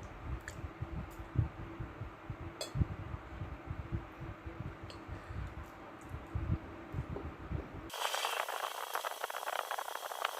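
Close-up eating sounds: irregular low chewing thumps with a few sharp clinks of a fork or knife on a plate. About eight seconds in, the sound cuts abruptly to a dense crackling hiss.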